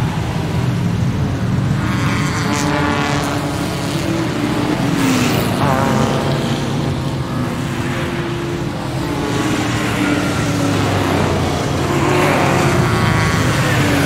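Formula One car engines running, their pitch rising and falling as they rev, in a steady, loud mix.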